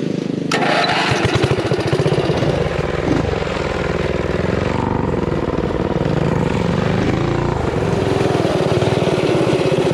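A mini bike's small engine comes in sharply about half a second in and runs hard under throttle, with a fast, steady firing.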